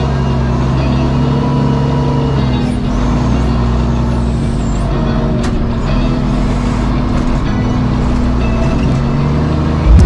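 Diesel engine of a John Deere wheel loader running under load as the bucket digs into a snow pile and lifts, its pitch stepping up and down a few times.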